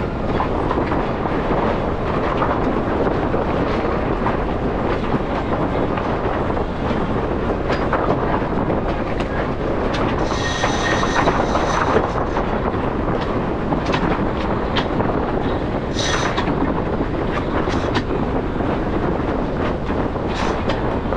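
Sailboat under way: a steady rush of wind and water past the hull, with the clicking of a cockpit sheet winch as it is cranked and a line is hauled. A brief high squeal comes about halfway through and a shorter one later, likely the winch or a loaded line.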